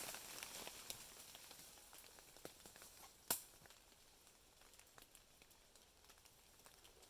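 Near silence with faint crackles dying away, scattered light clicks and one sharper snap about three seconds in.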